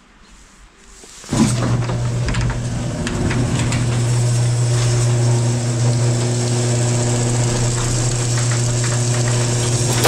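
A steady engine-like idling drone starts suddenly about a second in and holds at an even pitch, with light clicks and rattles over it.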